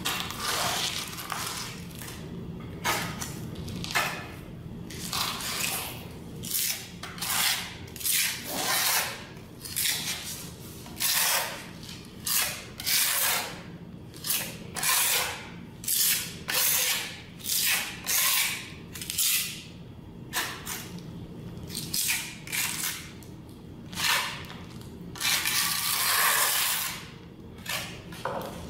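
A small hand scraper scraping and pressing grout along a floor tile joint in quick repeated strokes, about one and a half a second, with one longer stroke near the end. A steady low hum runs underneath.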